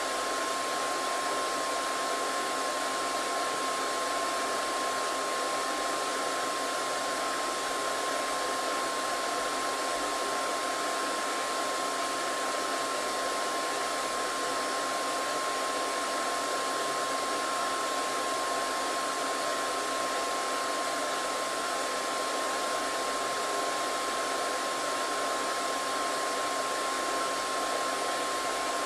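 Hair dryer running steadily: an even rush of air with a steady whine from its motor, unchanging throughout.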